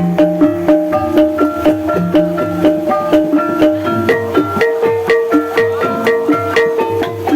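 Banyumasan gamelan music accompanying an ebeg horse dance: a quick, even stream of struck pitched notes over low drum strokes, with a few longer held tones.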